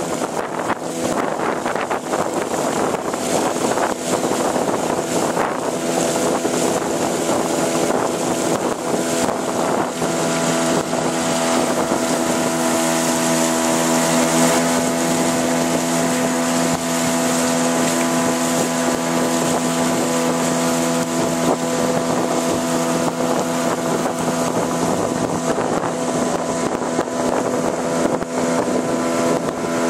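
Motor of a long river canoe under way at steady speed: a constant engine hum with water rushing past the hull and wind buffeting the microphone.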